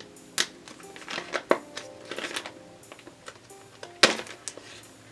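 A plastic toy package being torn open by hand: irregular crinkling and tearing with several sharp crackles, the loudest about four seconds in. Faint instrumental music plays underneath.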